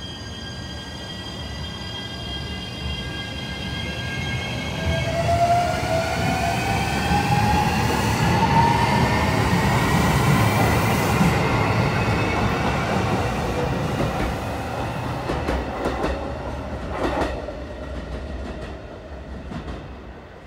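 JR Shikoku 7200 series electric train pulling out and accelerating: its traction inverter whine, several tones together, steps up about five seconds in and climbs steadily in pitch over the rumble of the wheels. Near the end the wheels click over rail joints and points as it draws away and the sound fades.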